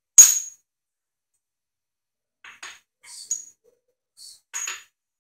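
High-speed steel tool bits clinking against each other as they are picked through by hand: one sharp, ringing metal clink just after the start, the loudest, then a few lighter clicks and clinks in the second half.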